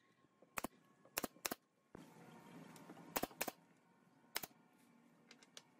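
Pneumatic nail gun firing about six sharp shots at uneven intervals, some in quick pairs, driving nails through small pine blocks into a wooden panel.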